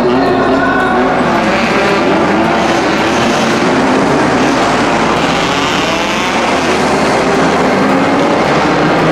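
A field of small kei-car racing engines revving and pulling away from a standing start, many overlapping engine notes rising and falling at once.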